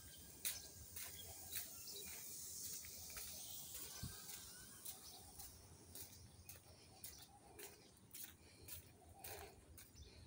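Faint outdoor ambience: light footsteps on paving stones, about two a second, with a few faint bird chirps.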